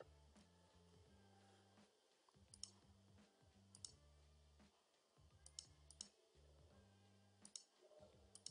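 Faint computer mouse clicks, several coming in quick pairs like double-clicks, over a faint low steady hum.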